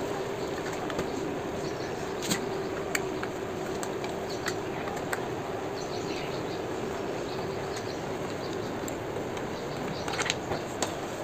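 Scattered light clicks and taps of hand tools and fairing bolts being worked loose from a motorcycle's side panel, with a few clicks close together near the end, over a steady background hum.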